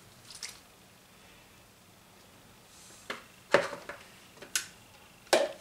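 A few light knocks and clatters of plastic kitchenware being handled: a short one near the start, then a scattered group in the second half, the loudest about three and a half seconds in.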